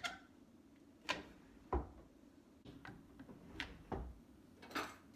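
Irwin Quick-Grip one-handed bar clamps being put on and squeezed tight against a wooden drawer front: a series of sharp ratchet clicks and knocks, roughly one a second, some with a dull thump as a jaw meets the drawer.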